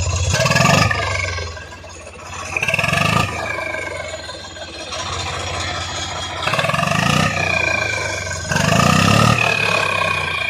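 Swaraj 855 tractor's diesel engine idling and being revved four times, an aftermarket turbo whistle sounding a high, falling whistle with each rev.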